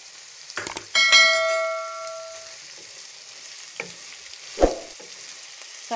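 Chicken pieces, onions and freshly added garlic paste sizzling as they fry in butter in a pan, with a spatula stirring and knocking against the pan a few times. About a second in, a metal object strikes and rings briefly, fading over a second or so.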